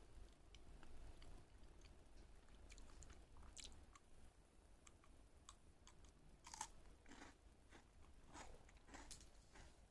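Jack Russell terrier crunching and chewing a treat: faint, scattered crunches, with a few louder ones in the second half.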